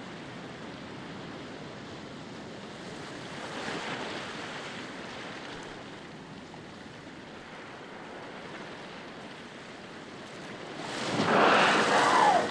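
Steady sea-water noise, swelling briefly about four seconds in, then a loud rush of splashing water near the end as a North Atlantic right whale breaks the surface.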